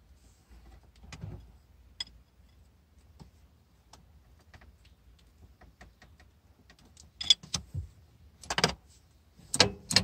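A wrench working the small steel jam nut on a shifter's stop screw, metal clicking and clinking against metal. Light scattered ticks come first, then louder bursts of clatter in the last three seconds.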